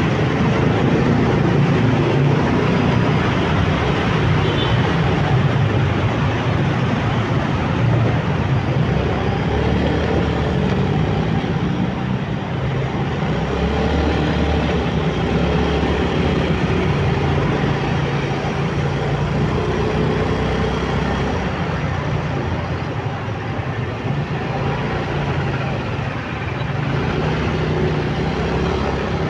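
Riding a motorcycle through city traffic: the bike's engine running and rising and falling in pitch with the throttle, over steady road noise and the traffic around it.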